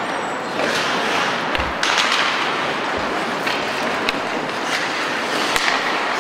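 Ice hockey play: skates scraping and carving across the ice, with several sharp clacks of sticks and puck and a few dull knocks.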